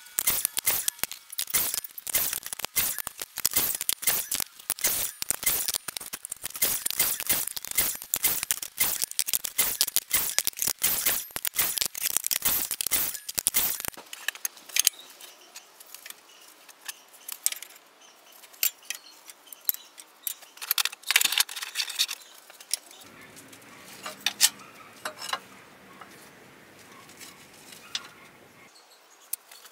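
Small pieces of wood clicking and clattering against each other and the worktop as they are handled: a dense run of rapid knocks, then sparser, quieter knocks about halfway through as hardwood strips are laid out side by side.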